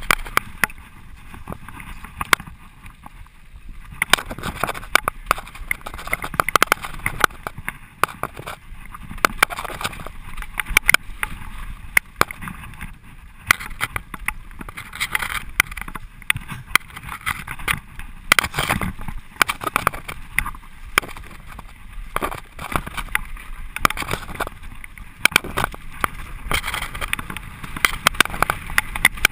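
Mountain bike ridden fast down a rough dirt trail: a constant rush of tyre noise on dirt, broken by frequent sharp clatters and knocks as the bike rattles over bumps.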